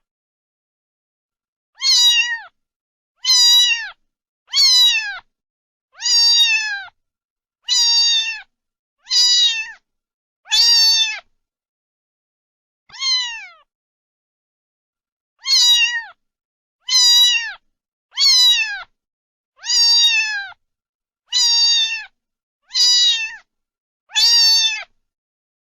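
A cat meowing over and over, about fifteen short high-pitched meows that each fall in pitch, spaced roughly a second and a half apart, with a longer pause around the middle.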